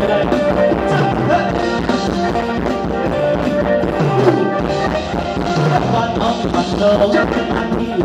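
Live band playing upbeat Thai ramwong dance music with a steady beat.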